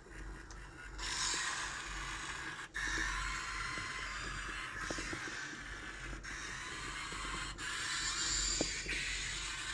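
Electronic sound effects from a die-cast Daitetsujin 17 toy robot, played through its small built-in speaker: a hissing, noise-like effect that cuts out briefly and starts again a few times.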